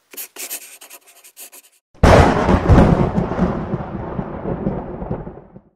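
Logo-reveal sound effects: quick pencil-like scratching strokes for about two seconds, then a sudden deep cinematic boom that rumbles and slowly fades away over the next three seconds.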